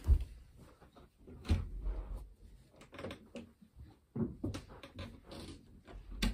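Footsteps in socks on a carpeted floor close by: several heavy thuds a second or more apart, with soft scuffing and rustling between them.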